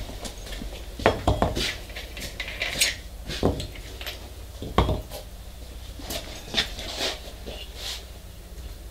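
Scattered metallic clinks and a few dull knocks as tools and an angle grinder are handled at a bench vise. No motor is running; the loudest knock comes about five seconds in.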